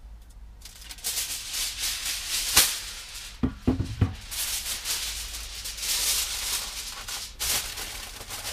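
Crinkly rustling of something being handled, coming in bursts, with a few light knocks around the middle.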